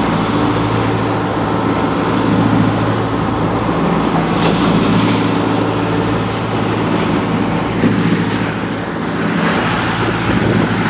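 The inboard engine of an ex-US Coast Guard 36-foot motor lifeboat running steadily under way, a constant low hum, with the rush and splash of water along the hull as the boat rides the swells.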